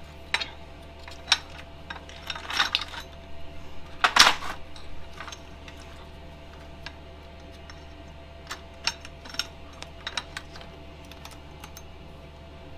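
Small metal parts and tools clinking and knocking as brackets and bolts are handled during fitting, in scattered sharp clicks that are busiest in the first few seconds and come again sparsely later, over a steady low hum.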